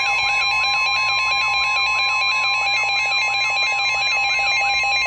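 Emergency alert attention tones: two steady electronic tones, with a rising-and-falling siren-like sweep about three times a second. The sweep stops near the end while the steady tones carry on.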